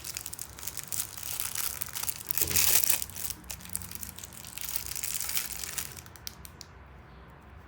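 Crinkling and rustling of a plastic blind-bag wrapper as it is handled and opened, loudest about two and a half seconds in, then fading to a few faint ticks near the end.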